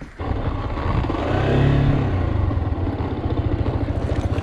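Motorcycle engine running, its revs swelling briefly about one and a half seconds in, then settling into a steady, evenly pulsing run.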